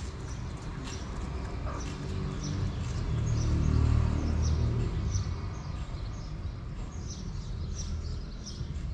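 Small birds chirping repeatedly in short, high, falling notes over a steady low rumble that swells for a couple of seconds midway.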